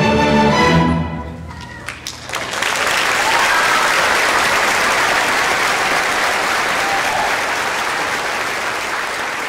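A string orchestra holds its final chord, which fades out about a second in. A few scattered claps follow, then the audience breaks into full applause that goes on steadily to the end.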